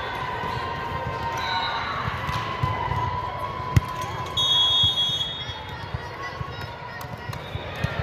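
Referee's whistle blown once, a short steady high blast lasting under a second about halfway through, over the voices of players and spectators in a gym. A single sharp thump, likely a ball bounce, comes just before it.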